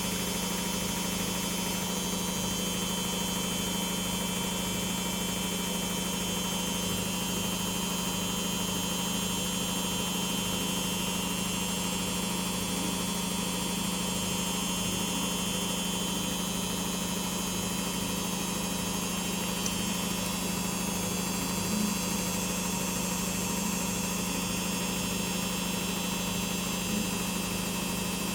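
LG WD-80155NUP washing machine running with a steady, unchanging mechanical hum.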